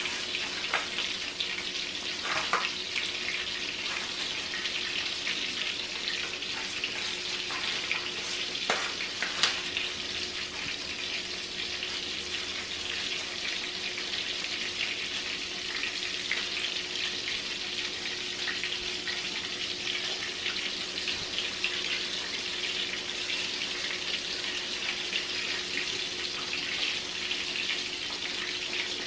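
Breaded cod fillets shallow-frying in oil in a cast-iron skillet: a steady, even sizzle, with a few soft clicks in the first ten seconds.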